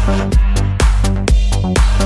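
Electronic house-style dance music made in the Groovepad app: a steady kick drum about twice a second under a sustained bass line and synth chords.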